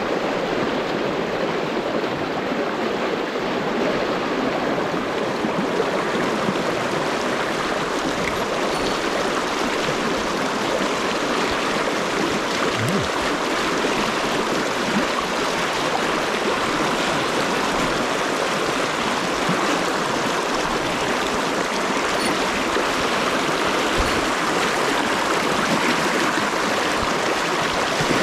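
Fast river current rushing steadily over rocks and through white-water riffles, the river running high after the previous days' rain.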